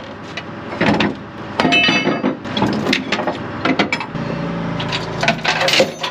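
Chain binder on a flatbed trailer being released with a cheater pipe: a string of sharp metal clanks and knocks, one ringing about two seconds in, as the binder lever and tie-down chain come loose.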